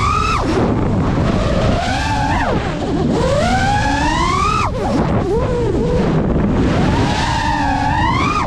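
FPV racing quadcopter's brushless motors whining from onboard. The pitch climbs with each throttle push and falls away sharply when it is cut, several times over, above a steady rush of prop wash and wind.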